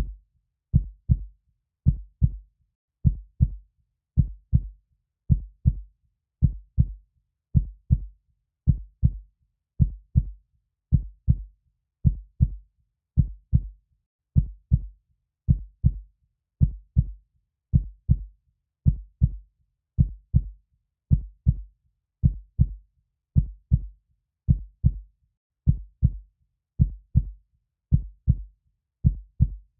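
Heartbeat sound: steady paired low thumps, lub-dub, repeating evenly a little more than once a second.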